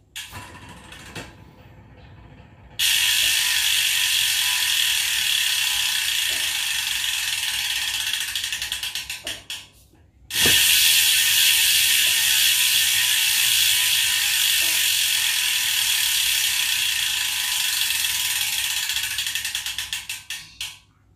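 Powerway R13 rear hub's freehub clicking in a fast, even buzz as the carbon wheel is spun by hand and left to coast, the clicks spreading out and fading as it slows. It is spun twice, the second spin starting about ten seconds in.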